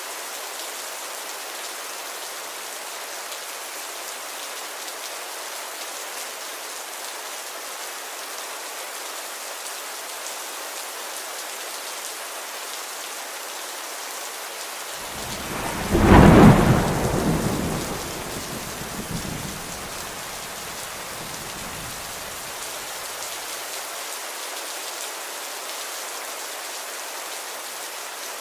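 Steady rain falling, with a clap of thunder about halfway through that peaks sharply and rumbles away over several seconds.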